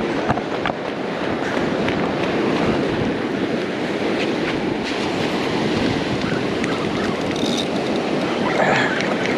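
Steady wash of ocean surf breaking on a beach, with a few faint ticks and a brief higher sound near the end.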